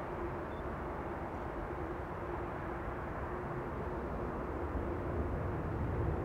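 Four-engined Douglas DC-8 jet airliner climbing away after takeoff: steady jet engine rumble with a faint steady hum, growing slightly louder near the end.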